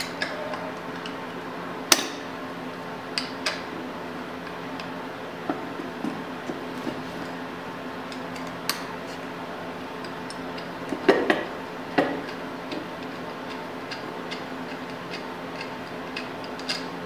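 Scattered metallic clicks and clinks of a hand wrench working the bolt on the actuating arm of a motorcycle's rear drum brake plate, with a louder knock about two seconds in and a cluster of louder clanks about eleven to twelve seconds in, over a steady low hum.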